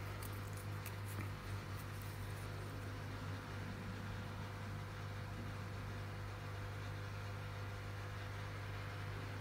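Steady low hum, with a few faint light ticks in the first couple of seconds.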